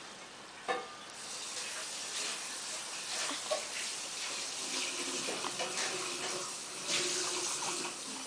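Water running steadily, as from a tap, starting about a second in just after a short knock.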